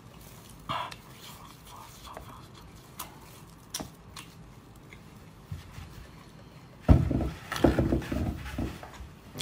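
Close-miked eating sounds of a person chewing spicy octopus: scattered small wet clicks and smacks, then about seven seconds in a loud burst of chewing and slurping lasting around two seconds.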